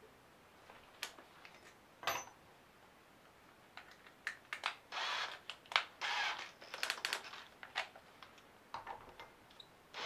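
Hands handling metal screws and a cordless drill at a workbench: scattered light clicks, taps and short rattles, with a few brief scraping bursts in the second half. A cordless drill starts running at the very end.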